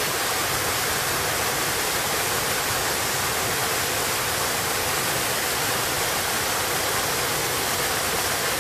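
Small mountain waterfall: water cascading over boulders in a rocky stream, a steady, even rush.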